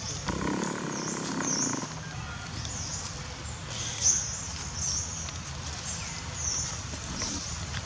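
Short high-pitched animal chirps repeating roughly once a second, with a lower animal sound early on.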